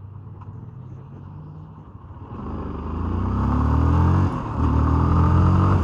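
Motorcycle engine ticking over at low revs, then pulling away: the engine note climbs and grows louder, drops briefly at a gear change about four seconds in, and climbs again as wind and road noise build.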